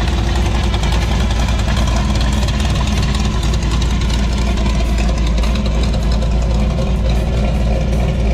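402 big-block V8 of a 1928 Ford Model A hot rod idling steadily through its side-exit headers, a deep, even rumble.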